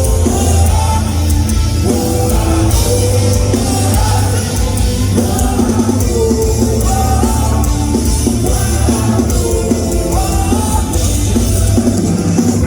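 Loud live rock band performance: drums, heavy bass and guitars playing continuously, with a melodic line that may be singing.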